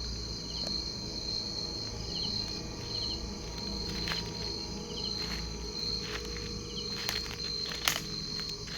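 Night insects such as crickets chirring steadily in a high, unbroken tone, with a few faint chirps and some sharp clicks, the loudest near the end.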